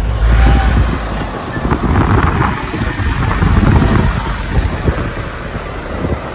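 A vehicle driving along a wet road: engine and road rumble mixed with wind buffeting the microphone. The heavy low rumble is strongest for about the first second, then gives way to a gusty hiss.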